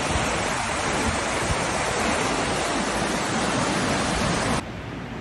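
Floodwater rushing through a street: a loud, steady rush of fast-moving water that cuts off suddenly near the end, leaving a quieter rushing noise.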